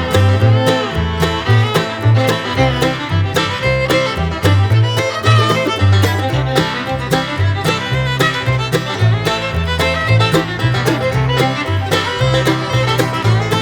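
Background music in a bluegrass style, with fiddle and banjo over a steady beat and a moving bass line.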